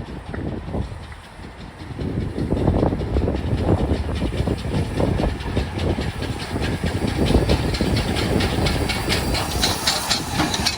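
LMS Black 5 steam locomotive and its train running in, the wheels and rail noise getting louder about two seconds in with a rapid clatter. Steam starts hissing near the end.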